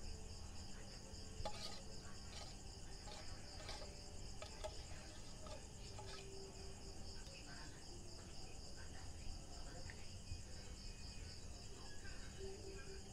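Crickets chirping steadily in an even pulsing rhythm, with a few faint clicks and scrapes of a metal spoon against a tin can.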